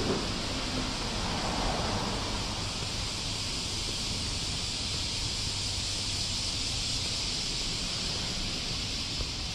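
Steady background noise of a quiet covered shopping arcade: an even hiss over a low rumble, with no distinct events.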